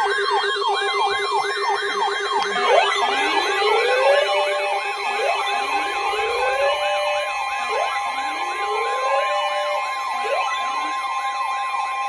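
Electronic sirens sounding together: a fast up-and-down yelp about three times a second over steady held tones, joined about two and a half seconds in by slower rising whoops roughly every second and a half.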